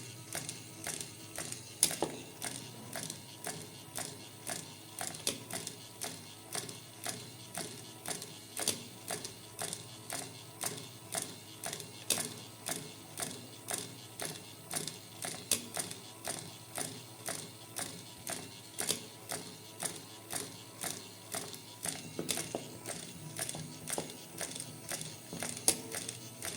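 Gear mechanism of a Gundam 00 Haro robot toy ticking over, a steady run of sharp ratcheting clicks at about three a second.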